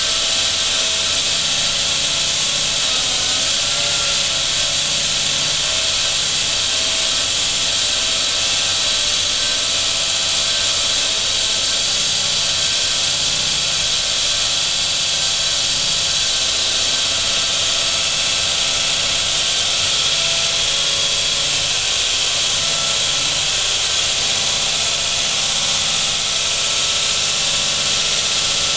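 Concrete wall saw cutting through concrete with a diamond blade, a loud, steady, high-pitched grinding whine that runs without a break.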